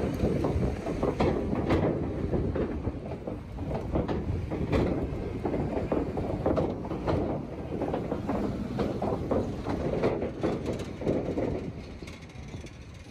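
Low, irregular rumble of city street noise with many clattering knocks, quietening near the end.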